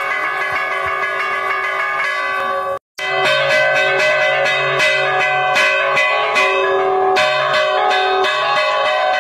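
Church bell ringing, struck over and over by its clapper, which is pulled by a rope. The sound cuts out briefly about three seconds in. After that come quick strokes at about three a second, each one ringing on over the others.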